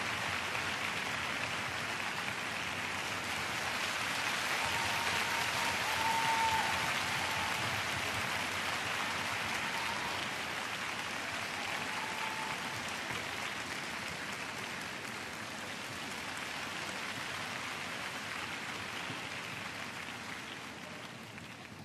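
Large arena crowd applauding a skater's finished performance. The clapping is loudest about six seconds in, then slowly fades toward the end, with a few short high calls from the crowd.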